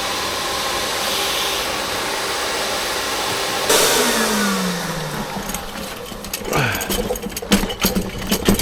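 Gutter vacuum running with a steady rushing whine; a sudden loud burst a little under four seconds in, after which the motor's pitch falls as it winds down. In the last two seconds, a quick run of hard knocks and clatters.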